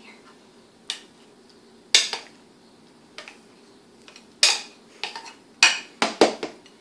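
A utensil clinking and knocking against a mixing bowl in a series of sharp knocks, coming closer together near the end, as butter is scraped into the bowl.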